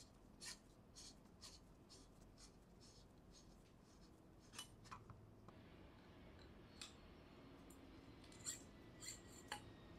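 Near silence with faint scattered clicks and light scraping as a metal drum shaft is slid out of a laser toner cartridge's OPC drum and plastic housing; a few sharper clicks come in the second half.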